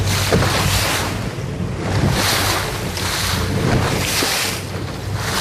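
Small motorboat running through 3 to 5 foot seas: wind buffeting the microphone and waves slapping and spraying off the hull in surges about once a second, over a steady low engine drone.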